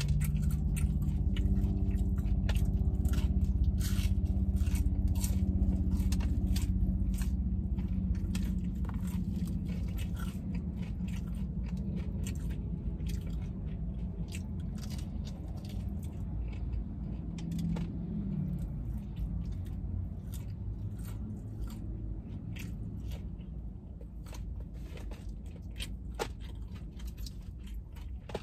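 Close-up crunching and chewing of crispy Popeyes fried chicken, eaten off the bone. The crunches come thick and fast for the first several seconds, then thin out to occasional crunches and wet chewing. Underneath runs a low hum that fades over the first half.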